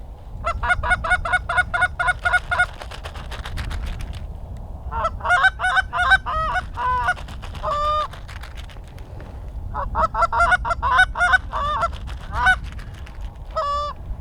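Canada goose honking and clucking in three fast runs of short, evenly repeated notes, with a brief last burst near the end, over a low steady wind rumble.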